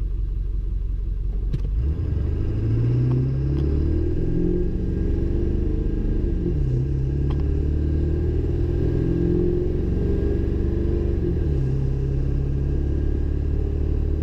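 Ford 7.3-litre Power Stroke turbo-diesel V8 on its stock tune, idling and then accelerating hard from a standstill about two seconds in. Its note climbs, falls back at a gear change about four seconds later, climbs again and falls back at a second gear change near the end. Heard from inside the cab, with a straight-piped 4-inch exhaust.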